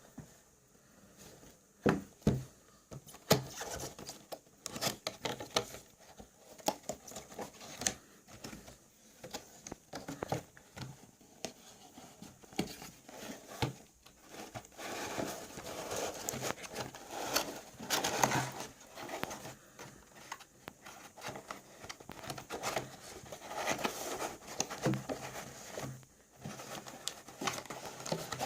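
Hands handling packaging and small plastic parts: irregular clicks, taps and rustling, with the busiest handling in the second half.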